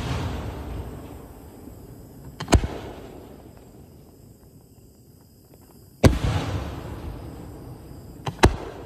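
5-inch aerial display shells: the rumbling echo of a shell burst dies away over the first two seconds, then a short sharp launch bang comes about two and a half seconds in. The shell bursts with a loud boom and a long rolling echo about six seconds in, and a sharp double crack from the next launch comes near the end.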